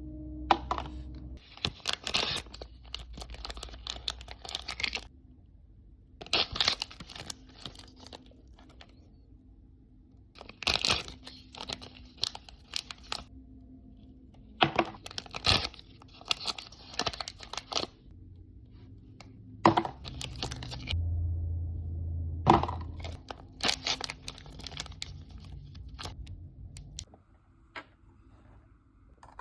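Plastic wrapping being torn and crinkled in repeated bursts of a second or several seconds, with sharp clicks of small plastic pieces in between.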